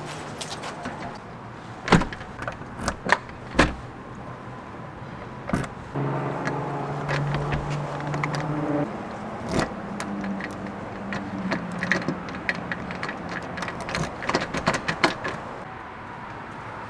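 Handling sounds of getting into a pickup truck: door and cab clunks, knocks and keys jangling. About six seconds in the truck's engine starts and runs with a steady hum, with more clicks over it.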